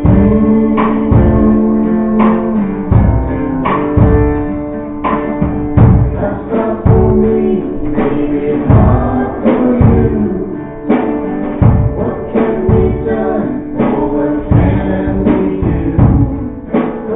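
Live worship song: an acoustic guitar strummed in a steady rhythm, with a man and a woman singing into microphones.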